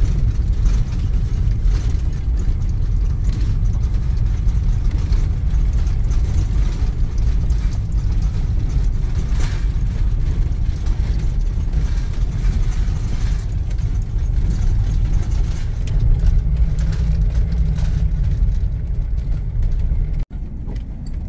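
Motorhome driving slowly on a gravel forest road: a steady low engine and road rumble with light rattling and clicking throughout.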